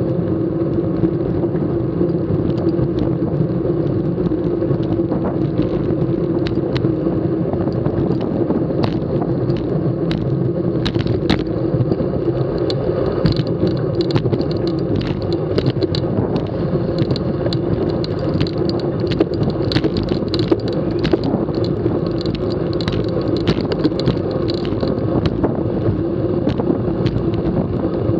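Steady wind and road noise from a road bike riding at race speed in a bunch on a concrete road, with a low steady hum and many scattered clicks and ticks.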